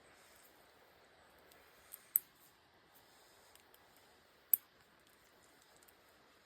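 A few sharp, light metallic clicks of hand tools being handled at a tire's nail puncture, two close together about two seconds in and a louder one about halfway through, over a faint steady hiss.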